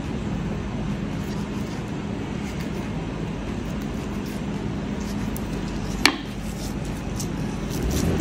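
Steady low rumble with a faint steady hum, and one short sharp click about six seconds in.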